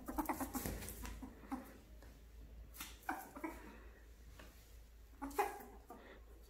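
Pet ferret giving excited play calls: a fast run of short chuckling clucks (dooking) in the first second, then a few short squeaky calls about three and five seconds in.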